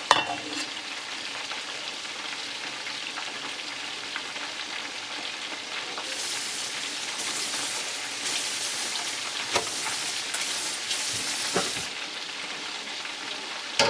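Chicken wings deep-frying in oil, a steady sizzle that grows brighter and hissier for a few seconds past the middle, with a couple of light knocks.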